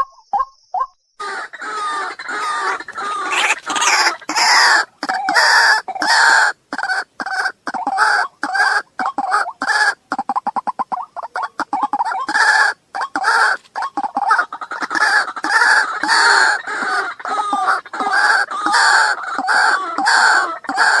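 Waterhens calling: short spaced calls give way about a second in to a loud, dense run of harsh repeated calls, several a second, with a faster stuttering patch near the middle.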